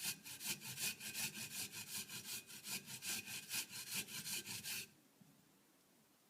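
Fresh ginger root being grated by hand on a grater: quick, even rhythmic scraping strokes that stop abruptly about five seconds in.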